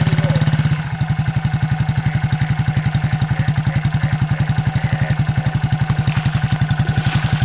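Engine of a Kawasaki Mule utility vehicle running at low speed while it creeps along, a steady rapid pulsing with a strong low hum.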